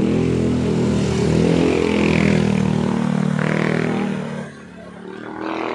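Motorcycle tricycle engine running close by as it passes, then dropping away about four seconds in.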